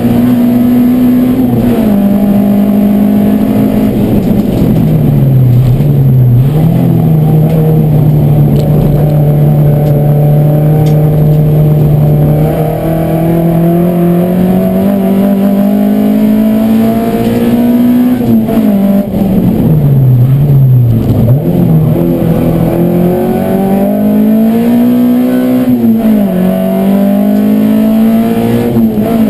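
Race car engine heard from inside its stripped cabin, lapping a circuit at full throttle. The engine note climbs steadily under acceleration and drops sharply several times, as the driver brakes and shifts down for corners.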